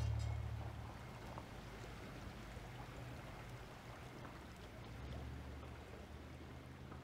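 The last low notes of the background music fade out in the first second, leaving faint steady background noise with a low hum.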